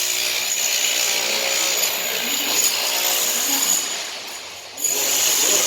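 A power tool running under load with a high, steady whine, winding down about four seconds in and starting up again shortly after.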